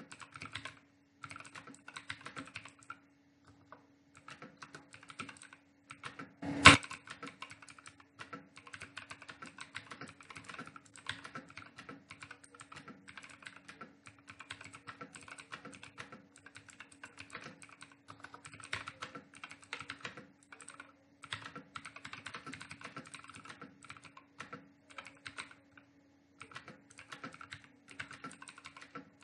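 Fast typing on a computer keyboard: rapid runs of key clicks with short pauses, and one much louder knock about six and a half seconds in. A steady low hum runs underneath.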